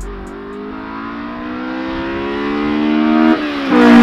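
Honda S2000 (AP1) F20C four-cylinder engine through a J's Racing 60RS exhaust, accelerating hard as the car approaches. The engine note climbs steadily for about three seconds, drops at a quick upshift, then climbs again much louder as the car nears.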